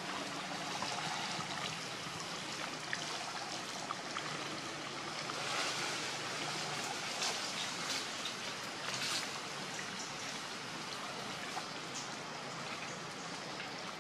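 Steady rushing background noise, with a few faint clicks and short rustles scattered through it.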